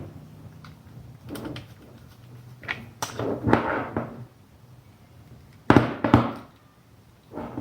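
Handling noises from wiring work on a contactor: several knocks and scrapes from wire and tools, the loudest pair of knocks a little under six seconds in.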